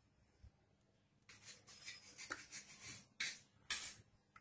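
Knife cutting the crust off a slice of bread: a series of faint scraping strokes beginning about a second in, the last two short and separate near the end.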